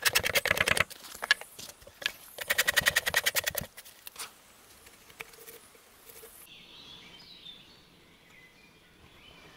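Curved two-handled bark scraper (skobel) stripping bark from a log in rapid, rhythmic scraping strokes, two runs of about a second each with a few scattered knocks between them. Birds chirp faintly near the end.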